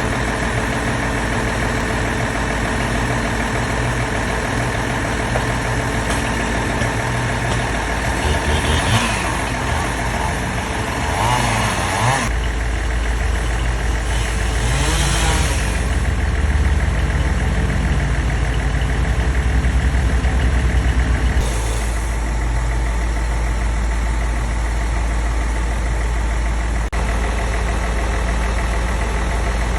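Engine of heavy tree-removal machinery running steadily, revving up and down a few times midway, with abrupt changes in its sound twice.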